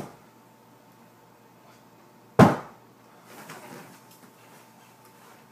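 A single sharp thump about two and a half seconds in, the loudest sound, followed by a faint rustle about a second later.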